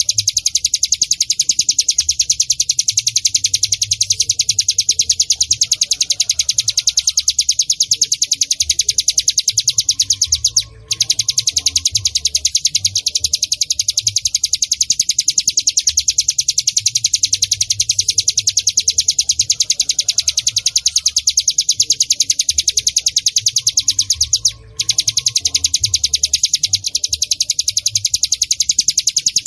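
Ciblek gunung (mountain prinia) call: a loud, rapid, continuous high-pitched chattering trill, broken by two brief pauses about fourteen seconds apart.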